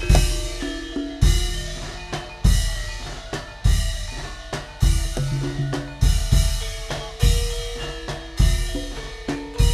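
Javanese gamelan music accompanying tayub dancing. Heavy drum strokes land about every 1.2 s over ringing metallophone tones, with a steady beat.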